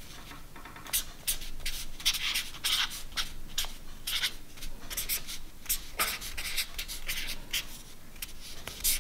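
Felt-tip marker writing on paper: a run of short, irregular scratchy strokes as letters and numbers are drawn.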